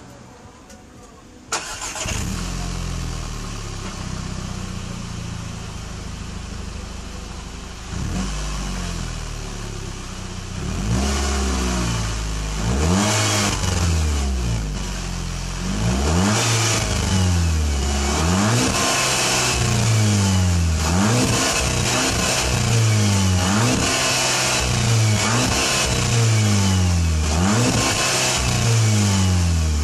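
VW Scirocco 2.0 TSI turbocharged four-cylinder engine, heard at its exhaust, starting up about a second and a half in and settling to a steady idle. From about ten seconds in it is revved again and again in short throttle blips, about one every second and a half.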